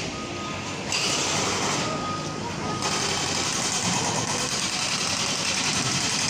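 Truck reversing alarm giving two long, steady beeps about two seconds apart, over steady street and engine noise.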